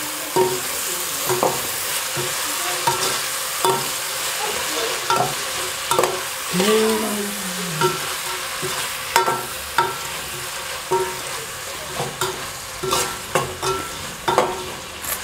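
A metal spoon stirring and scraping omena fried with onions and tomatoes in an aluminium pot, with repeated scrapes and clinks against the pot every second or so. The food sizzles steadily underneath as it fries, just before it is served as ready.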